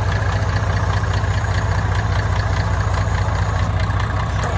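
Off-road 4x4 engine idling steadily with a low, even hum.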